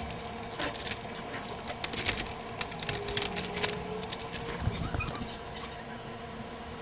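Irregular clicks and rustling from hands handling the plastic parts of a CD changer during reassembly, busiest in the first five seconds, over a faint steady hum.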